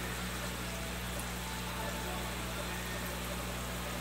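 Aquarium air pump humming steadily, with an even hiss over the low hum.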